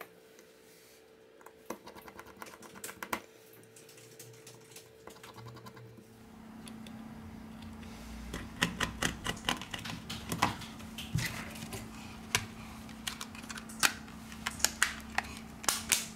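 Small sharp clicks and ticks from a Samsung Galaxy S5 being reassembled. A screwdriver taps against the screws in the phone's midframe, then the plastic back cover is pressed on and clicks many times in quick runs as its clips snap into place. A faint steady hum sits underneath.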